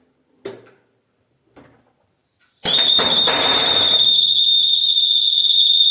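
Fire alarm siren of a building's fire alarm system, set off for a test: a couple of faint clicks, then about two and a half seconds in the siren comes on suddenly with a steady, loud, high-pitched tone, a rush of noise under it for the first second or so.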